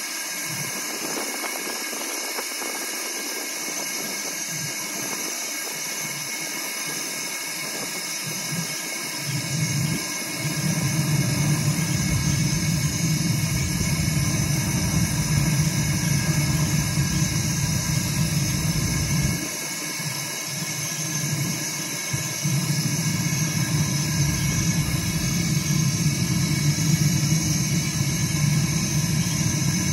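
JJGeorge propane grill torch running with a steady hissing jet flame on lump charcoal to light it. Wind rumbles on the microphone, coming in heavier about ten seconds in and easing briefly around twenty seconds.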